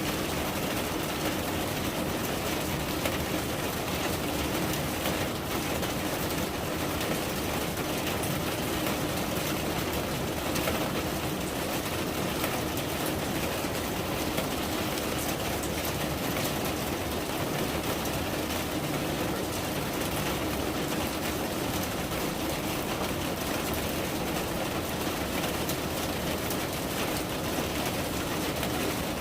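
Steady rain falling: an even, unbroken hiss of rain with no distinct drops standing out.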